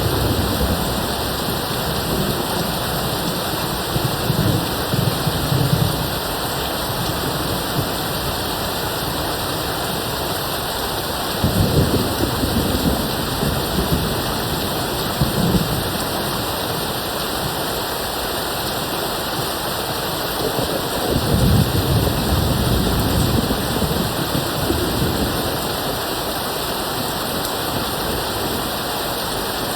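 Steady rain with distant thunder rumbling low three times: about four seconds in, again about eleven seconds in, and once more a little past twenty seconds.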